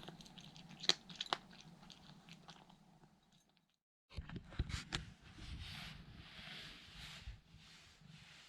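Cat chewing dry treats: a few faint, crisp crunches, with a brief break partway through.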